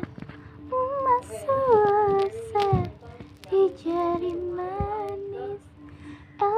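A girl singing a Malay zapin song in phrases of wavering, ornamented notes, with short breaths between them and a long held note in the second half.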